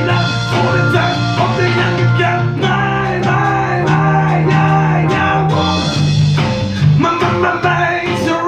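A small band playing a song live: a man singing with acoustic guitar, backed by bass guitar and an electronic drum kit keeping a steady beat.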